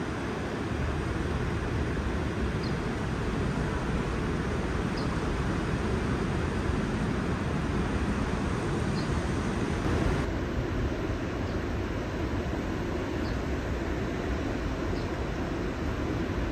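Steady low rumble of city background noise, with a few faint light ticks.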